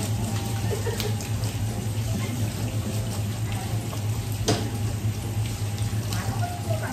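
Tap water running into a sink while fish are being cleaned, over a steady low hum, with a couple of sharp knocks.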